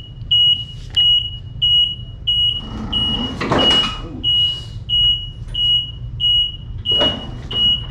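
Reverse warning beeper on a Ryobi RM480EX electric riding mower, sounding while the mower backs up: a single high beep repeated about three times every two seconds. A louder burst of rumbling noise rises about three seconds in and again near the end.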